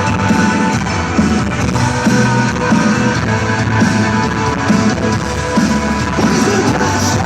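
Live rock band playing through an arena PA at a sound check, with guitar to the fore.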